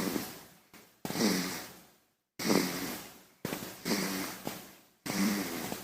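A baby snoring in sleep: about four short snoring breaths, each about a second long with a falling pitch, separated by brief gaps.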